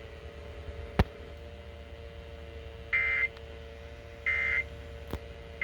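Short, high electronic beeps repeating about every second and a quarter, starting about three seconds in, over a faint steady hum; a single sharp click about a second in.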